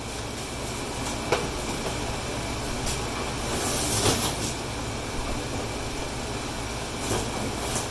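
Blue painter's tape being peeled off cardboard masking, ripping and crackling in several pulls, the loudest about four seconds in. Under it runs the steady hum of two air conditioners.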